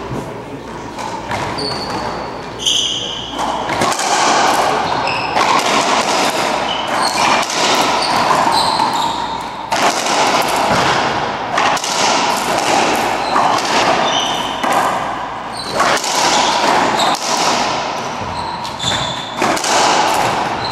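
Racquetball rally: the ball cracks off racquets and smacks the walls and floor again and again, echoing in the enclosed court, with short high squeaks of sneakers on the hardwood floor.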